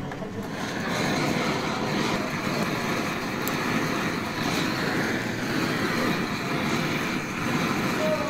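Steady roar of a butane kitchen torch flaming a pan of cooked lobster pieces, starting about a second in, with some sizzling.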